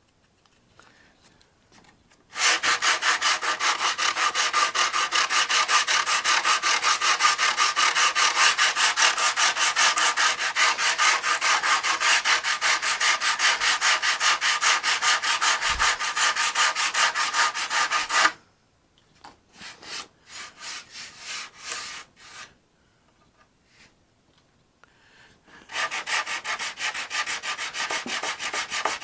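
Hand sanding with coarse 40-grit sandpaper, rapid back-and-forth strokes scraping down a cured filler fillet at the wing root of a balsa model airplane to take off the high spots. The sanding starts a couple of seconds in, runs steadily, breaks off into a few short strokes and a pause, then starts again near the end.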